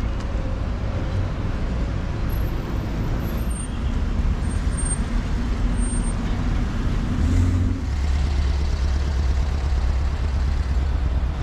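Street traffic: car engines running close by with a steady low rumble, and a deeper engine drone that comes in about eight seconds in.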